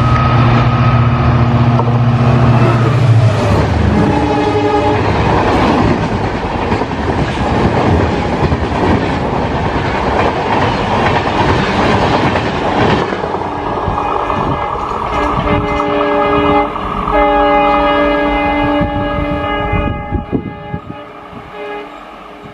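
A WDP4 diesel locomotive with an EMD two-stroke engine passing close at speed, its deep engine rumble strong for the first few seconds. LHB coaches then rush past with wheels clattering, and a multi-tone train horn sounds briefly about four seconds in and again at length in the second half. The noise fades as the train draws away near the end.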